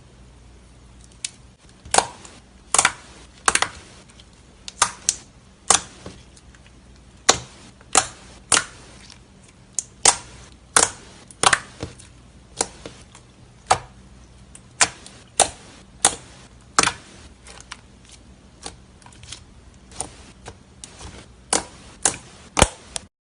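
Slime being squished and poked by hand, with air pockets popping in sharp, irregular clicks about once a second.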